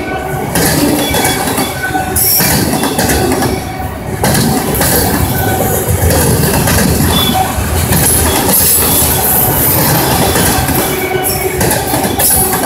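Freight train of enclosed autorack cars passing close at speed: a loud, continuous rumble and clatter of steel wheels on rail, with short high-pitched wheel squeals coming and going.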